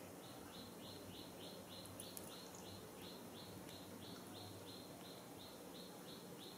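Faint, even chirping: short high notes repeated about three times a second, over a low hum.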